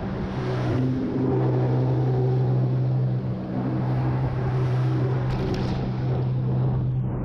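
Jet ski engine running at a fairly steady pitch over a steady hiss.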